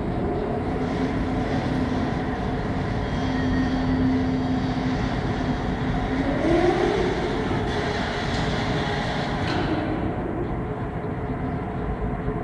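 Electric automated guided transport carts (AGVs) driving over a tiled floor: a steady running hum with a held tone, and a whine that rises in pitch about six seconds in.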